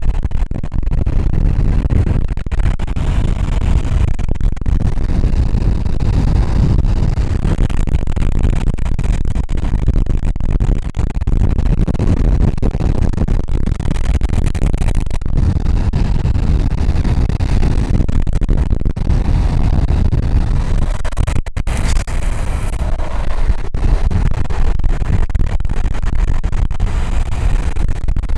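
Loud, steady rumble of wind buffeting the microphone and longboard wheels rolling on asphalt at speed during a downhill run; the raw audio is harsh and distorted.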